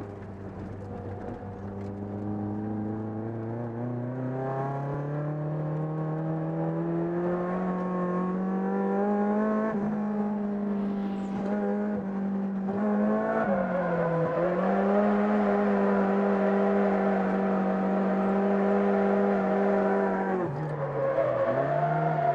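Toyota AE86 Trueno's 4A-GE twin-cam four-cylinder engine heard from inside the cabin. The revs rise steadily over the first ten seconds and are then held high, with brief dips in revs about 13 seconds in and again near the end.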